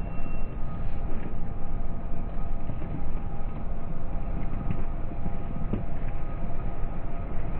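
Freight train boxcars rolling past: a steady rumble of steel wheels on the rails, with a thin steady whine over it and a few faint clicks.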